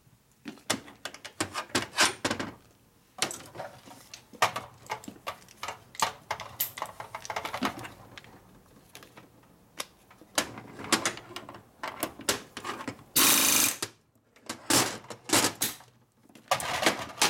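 Clinks and clatter of steel tools and parts handled on a metal workbench, with one loud burst from a pneumatic tool on a coiled air hose, under a second long, about three-quarters of the way through.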